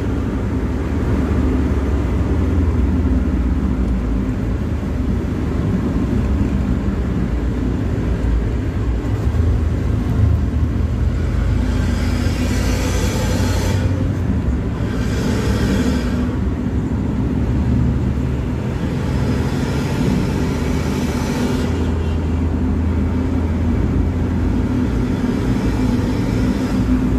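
Road noise of a vehicle cruising on a highway, heard from inside: a steady low rumble of engine and tyres, with a few stretches of louder hiss around the middle and again a little later.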